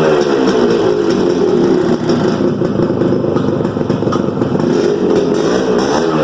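1988 Yamaha RX100's two-stroke single-cylinder engine running and being revved: the revs fall away in the first second, hold steady, then climb again near the end.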